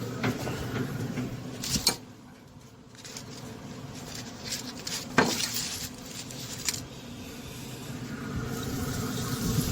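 Metal clinks and knocks as sauced racks of ribs are set back on a pellet grill's grates, with one sharper clank about five seconds in, over a steady low hum.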